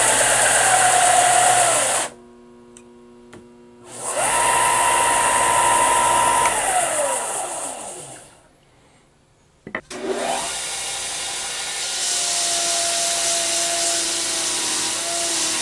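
Benchtop belt and disc sanders running with a steady motor whine. About halfway through one winds down to a stop. A couple of seconds later a sander is switched on with a click, spins up and runs steadily again.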